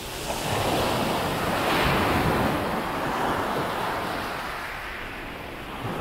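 Calm sea waves breaking and washing up a beach: one wash swells in just after the start, peaks about two seconds in and slowly drains away, with another starting near the end. Wind rumbles on the microphone underneath.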